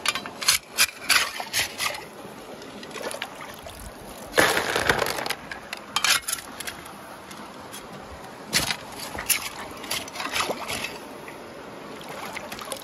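Shovel digging into a gravel streambed under shallow running water: stones clacking and scraping against the blade, with splashes and the steady rush of the stream. Sharp knocks come in quick succession at the start, with a longer scraping splash about four and a half seconds in and more knocks around eight to eleven seconds.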